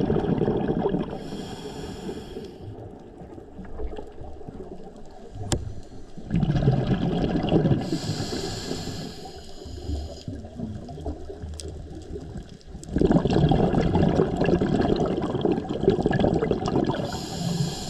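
Scuba diver breathing through a regulator underwater. Loud gurgling bursts of exhaled bubbles, at the start, from about six seconds and from about thirteen seconds, alternate with the high hiss of the regulator on each inhalation, heard about a second in, around eight seconds and near the end.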